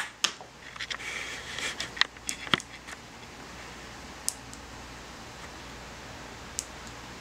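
Steady room hum with a few small clicks and rustles of hands handling a small circuit board and its battery pack; the sharpest click comes about two and a half seconds in, with two faint clicks later.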